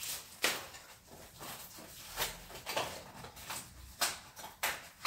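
Scattered light clicks and knocks of kitchen items being handled on a counter, about seven in all, the sharpest about half a second in and about four seconds in.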